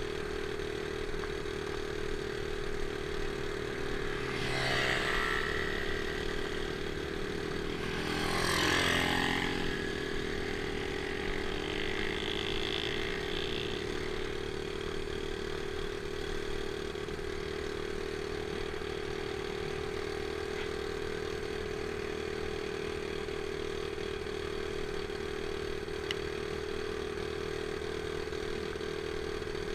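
Small Honda dirt bike's single-cylinder four-stroke engine held flat out at a steady pitch, at its top speed. Twice the sound swells louder, about four and eight seconds in, and the second swell falls in pitch as it passes.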